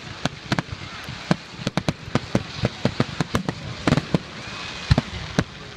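Fireworks finale: many aerial shell bursts going off in rapid, irregular succession, several sharp bangs a second, with a couple of heavier booms about four and five seconds in.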